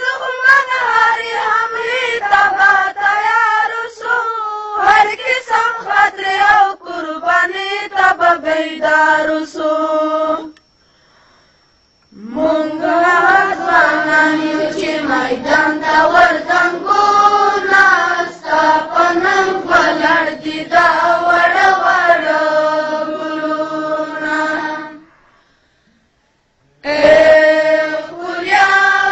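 Pashto milli naghma (patriotic song) sung by a high voice without instruments, in long drawn-out melodic lines. The singing breaks off twice for about two seconds, near the middle and near the end.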